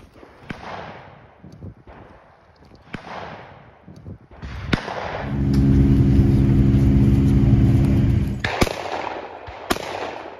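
About five shotgun shots on a sporting-clays course, each sharp report followed by an echo through the woods. For about three seconds in the middle, a utility vehicle's engine runs steadily and louder than the shots.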